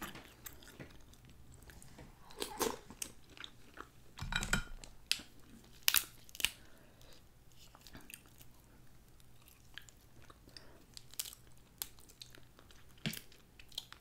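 Boiled snow crab leg shells cracked and snapped apart by hand, and the meat chewed: sharp crunching cracks at irregular moments, the strongest about six seconds in, with a dull thud a little earlier.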